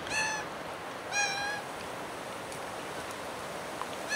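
Young Australian magpie giving short nasal, honk-like calls: two in quick succession near the start and about a second in, and another right at the end, each dipping slightly in pitch.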